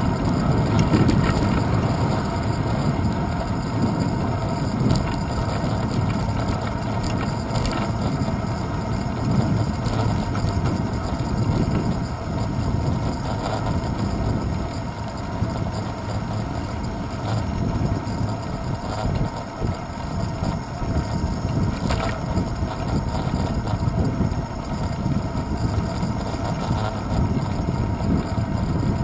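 Wind buffeting a handlebar-mounted GoPro Hero 2 in its housing, mixed with tyre and road rumble from a bicycle rolling over asphalt: a heavy, fluttering low rumble, with a few sharp clicks and rattles from bumps in the road.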